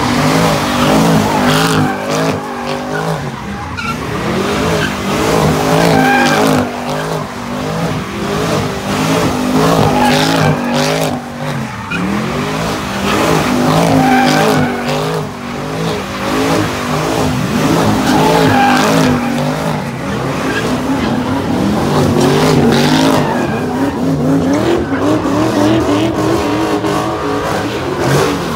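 A car doing a burnout or donuts: its engine revs hard, the note rising and falling again and again, while the tires squeal and skid on the pavement.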